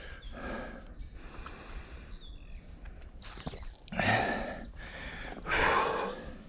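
Mountain biker breathing hard while riding, with about five loud breaths in quick succession, over a constant low rumble of the ride.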